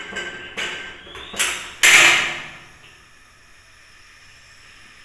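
A frying pan being handled on a gas stove's metal burner grate: a few short scraping knocks, the loudest about two seconds in. After that only a faint steady hiss remains.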